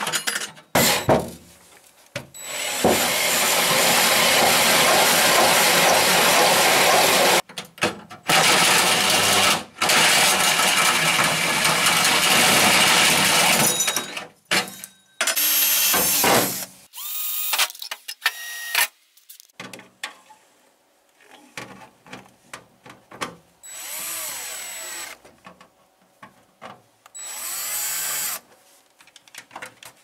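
DeWalt cordless drill boring holes through galvanized sheet-metal ductwork. It runs in several long stretches of a few seconds each, then in shorter bursts near the end.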